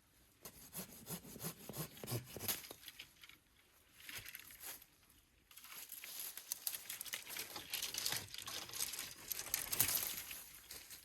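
Dry twigs and forest-floor litter crackling and rustling in dense irregular clicks, in two spells with a short lull between.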